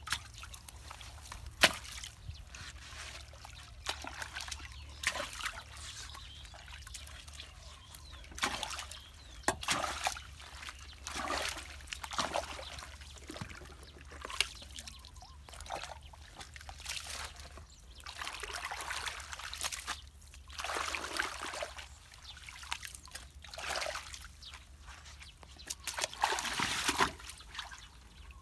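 Muddy floodwater sloshing, splashing and trickling in irregular bursts as a long wooden pole is worked into a clogged culvert pipe, over a steady low rumble. A sharp knock stands out a couple of seconds in.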